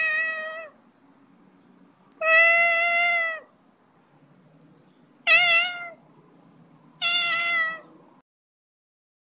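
Siamese cat meowing four times, the second meow long and drawn out and the third wavering in pitch.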